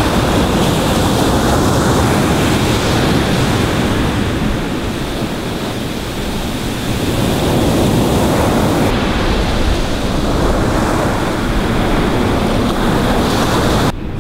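Ocean surf breaking and washing up a sand beach, a steady wash of noise that eases off for a few seconds in the middle and then swells again as the next wave comes in.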